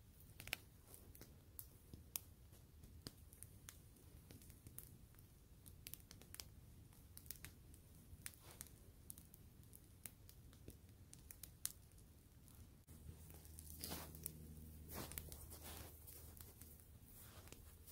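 Campfire crackling faintly, with sharp irregular pops and snaps from the burning wood. About three-quarters of the way through, a soft steady rush joins in.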